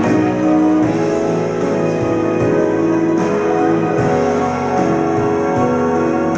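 Instrumental passage of a slow love ballad, with guitar, between sung lines.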